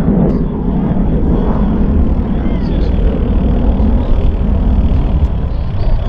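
F-35B Lightning II's Pratt & Whitney F135 turbofan running at high power in afterburner: a loud, steady rumble.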